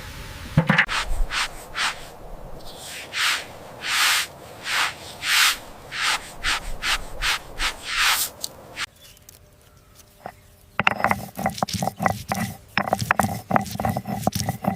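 Rhythmic scraping or rubbing strokes, about one and a half a second, like something being ground or scrubbed back and forth. After a brief lull, a busy run of small clicks and taps takes over near the end.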